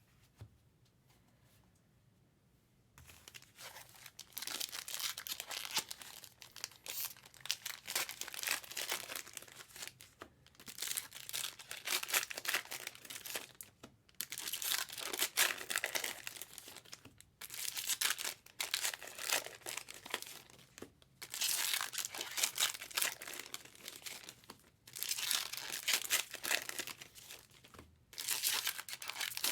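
Trading-card pack wrappers being torn open and crinkled, starting about three seconds in and going on in crackly bursts of a few seconds with brief pauses between them.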